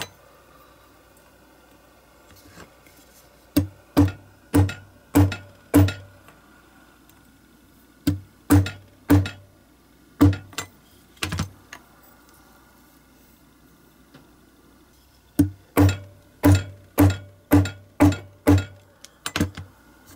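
Sharp taps struck through a soft plastic dowel onto the bent roof of a zinc die-cast toy car body to straighten it. They come in three runs of several taps each, about two a second.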